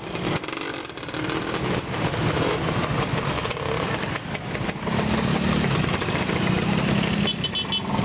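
A procession of motor scooters, vintage and modern Vespas among them, riding past one after another with their small engines running. A few short high beeps sound near the end.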